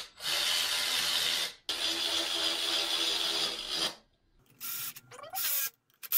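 Makita cordless driver running in the AC compressor's mounting bolts: two long runs of about a second and a half and two seconds, then a few short spin-ups with a rising whine near the end.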